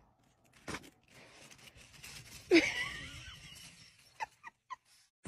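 A person's brief wheezy laugh about two and a half seconds in, with a few soft clicks around it.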